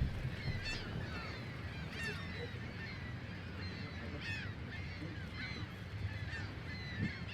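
A flock of birds calling over and over, with many short, overlapping calls several times a second, over a low, steady rumble of wind or water.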